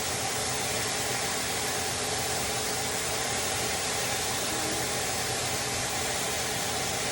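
Kitchen range hood vent fan running: a steady, even rushing noise with a faint hum, switched on to clear the smoke from the cooking.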